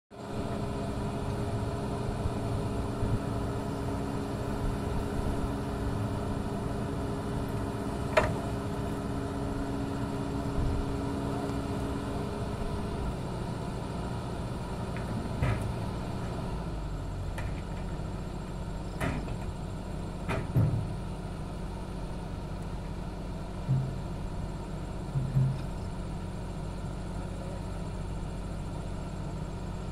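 SANY hydraulic excavator's diesel engine running steadily. Its note changes about halfway through. Several sharp knocks are heard over it.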